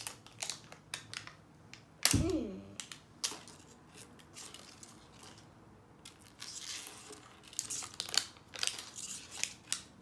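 Plastic wrap of an LOL Surprise ball crinkling and tearing in irregular crackles as it is peeled off layer by layer, denser in the last few seconds. A brief loud sound with a falling pitch about two seconds in.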